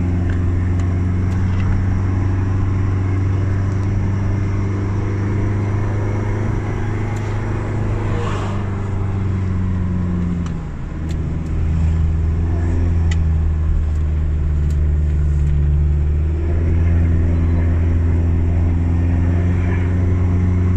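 Car engine heard from inside the cabin, a steady low drone as it pulls up a steep climb. About halfway through, its note drops and dips briefly, then picks back up and holds steady.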